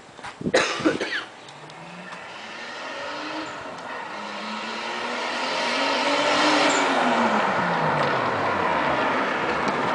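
Turbo inline-six of a 1987 Toyota Supra with an aftermarket exhaust, coming closer and getting louder as it is driven hard. Its engine note rises, then drops off after the middle. A few sharp knocks come in the first second.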